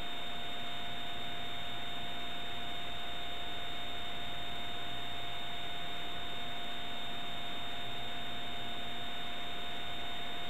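Steady hiss with two constant tones, one middling and one high, unchanging throughout: playback noise from a blank stretch of videotape with no signal recorded.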